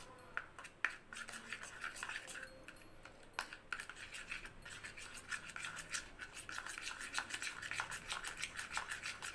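A metal spoon stirring and scraping a thick paste of potato juice and multani mitti in a plastic bowl, with rapid, repeated scrapes and small clicks.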